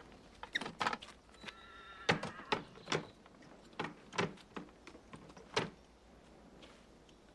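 Quiet scattered knocks and clicks around a halted horse-drawn carriage, with a faint horse whinny about a second and a half in.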